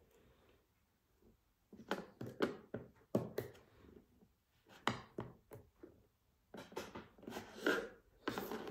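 Irregular metallic clicks and knocks of a pair of scissors being taken apart with a small hand tool, coming in short clusters from about two seconds in.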